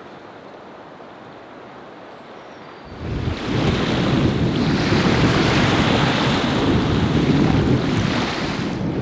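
Small waves lapping and washing onto a pebbly shore, with wind buffeting the microphone; the sound comes in suddenly about three seconds in, after a faint steady outdoor hiss, and eases slightly near the end.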